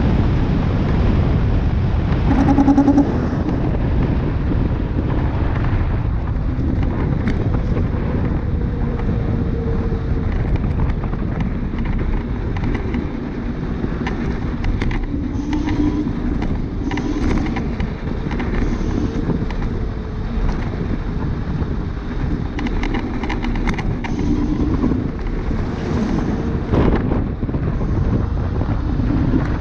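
Wind rushing over the microphone and tyre noise from a Dualtron Thunder electric scooter riding along asphalt: a steady low rumble with scattered small clicks and rattles. A short pitched tone sounds about three seconds in.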